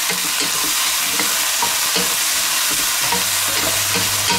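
Diced zucchini sizzling in hot oil in a nonstick wok while a wooden spatula tosses it, with short scrapes of the spatula against the pan every half second or so over a steady sizzle. A low steady hum comes in about three seconds in.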